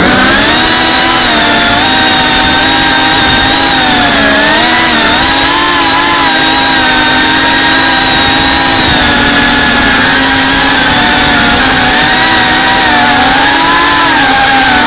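FPV racing quadcopter's motors and propellers whining loudly as heard from its onboard camera, the pitch wavering up and down with throttle changes.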